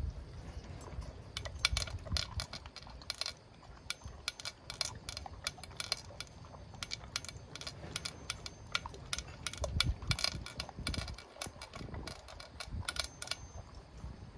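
A pet eating its breakfast: a rapid, irregular run of sharp crunching clicks, with a few dull thumps.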